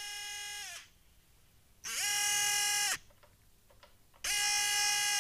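Sensored brushless RC car motor, driven by a Tekin RS speed controller, whining at one steady high pitch in three bursts of a second or so, each ending with a quick drop in pitch as the throttle is released. It runs rough: its bearings are gone and there is white corrosion inside the motor and on its sensor board.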